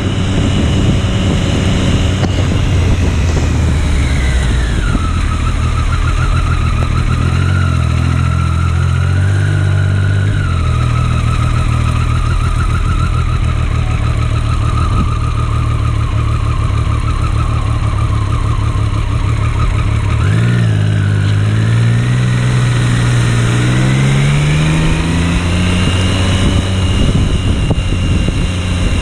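Motorcycle engine heard from the rider's seat, slowing down early on, running low and steady for about fifteen seconds, then speeding up again about twenty seconds in and settling at a higher steady pitch.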